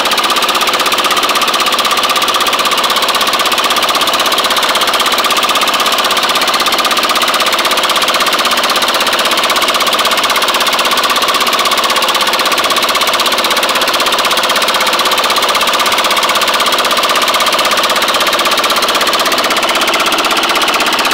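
Small fishing boat's engine running steadily and loudly while trolling, with a constant whine over its rough running note.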